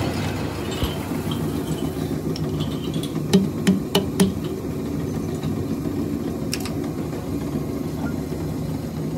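Steady hum of lathe workshop machinery, with sharp metallic knocks: four in quick succession about three to four seconds in and another near six and a half seconds, as the steel hub is handled in the lathe's chuck.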